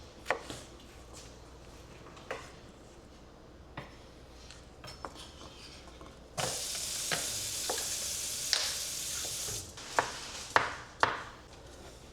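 Sharp knife taps on a cutting board while vegetables are chopped, with a steady hiss that starts abruptly about six seconds in and cuts off about three seconds later.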